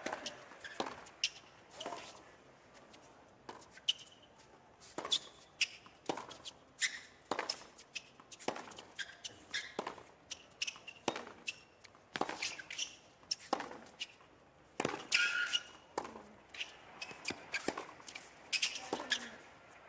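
A long hard-court tennis rally: tennis balls struck by racquets and bouncing on the court in a steady run of sharp pops, about one or two a second, with a few short shoe squeaks as a player lunges.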